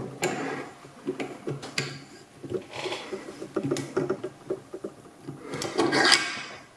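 A padlock being set into a small vise's jaws and the vise screw tightened by its metal T-handle: scattered light metal clicks and knocks, with a louder rasping sound near the end.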